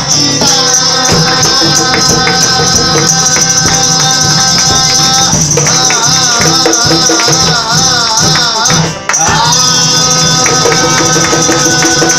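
Live acoustic guitar strumming under a man singing long, held notes, wavering in the middle, with a shaker-type rattle and hand claps keeping time. The music drops out briefly about nine seconds in, then comes back.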